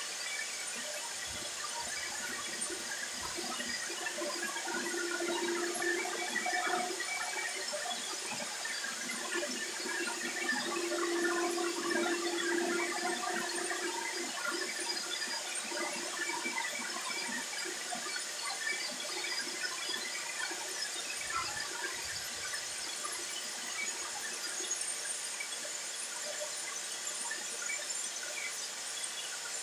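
Soap extruder running: its electric motor and screw barrel whirring steadily, with a squeal that swells twice, about five seconds in and again from about ten to fourteen seconds in.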